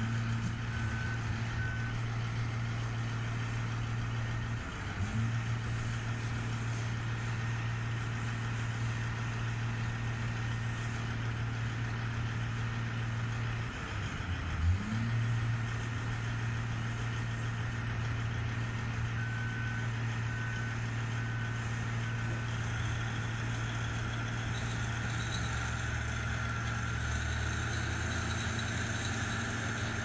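Heavy diesel engines of a mining excavator and haul truck running steadily with a deep hum, the pitch dipping and climbing back twice, about five and fourteen seconds in. A few short beeps sound about a second in and again a little past the middle.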